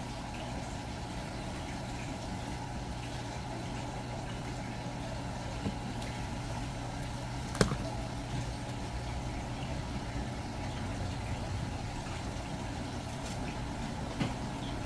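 Steady low machine hum, with a few light knocks and one sharp click about halfway through.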